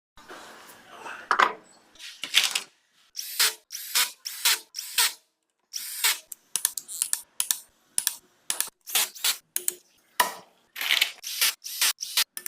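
A rapid, irregular series of short power-tool bursts, each lasting a fraction of a second and cut off sharply into silence.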